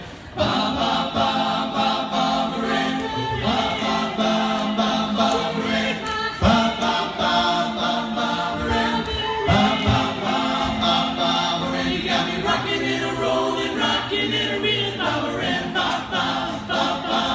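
A group of voices singing together in close harmony, a cappella.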